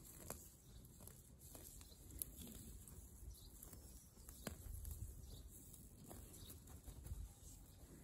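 Faint rustling and scattered soft snaps as dill plants are pulled up by their roots from garden soil.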